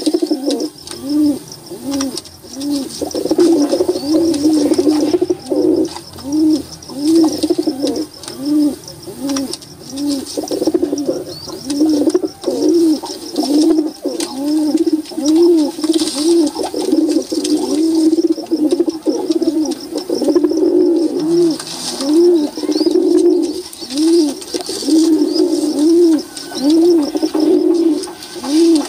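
A flock of domestic pigeons cooing, many low, rolling coos overlapping and repeating in a steady rhythm.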